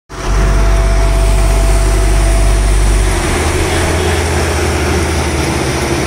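Heavy diesel road-building machinery running steadily: an asphalt paver's engine with a deep steady hum, changing abruptly about three seconds in to a tandem road roller's engine with a rapid pulsing low note.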